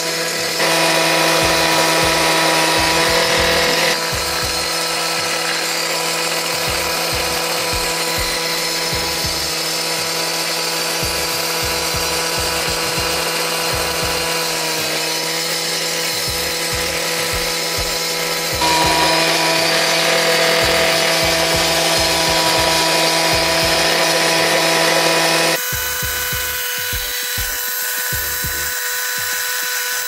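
Gas-powered cut-off saw with a 12-inch diamond blade running at full speed and grinding into a concrete stair, a steady high engine whine with gritty cutting noise. The level jumps abruptly a few times.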